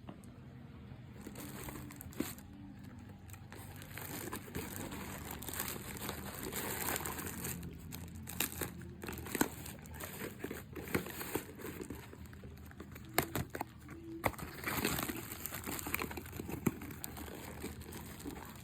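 Packaging being unwrapped by hand: continuous crinkling and rustling with irregular sharp crackles and a few tearing sounds.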